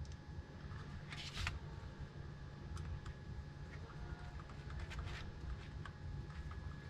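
Scattered light clicks and handling noise from small plastic parts being worked by hand, with two brief scraping rustles, about a second in and near five seconds.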